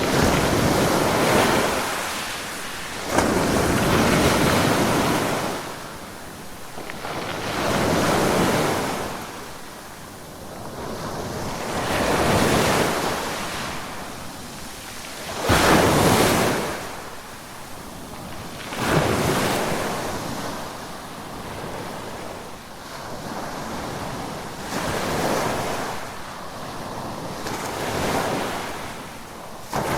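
Ocean waves breaking on the shore and washing back, one surge every three to four seconds. Two of the waves break with a sudden, sharper crash.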